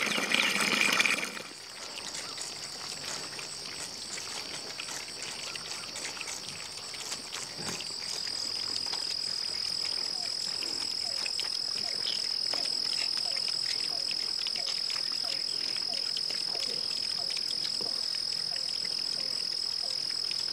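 Water from a garden hose splashing into a pan for about the first second and a half, then a steady high-pitched insect drone that grows louder about eight seconds in.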